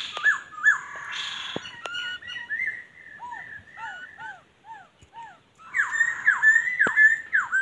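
Laughingthrushes calling: a run of loud, whistled notes that swoop down in pitch, with more than one bird calling at once. A few softer, lower arched notes come midway, and the calling grows dense near the end.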